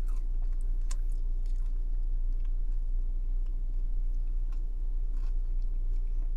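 A person chewing food close to the microphone, with faint scattered mouth clicks, over a steady low hum.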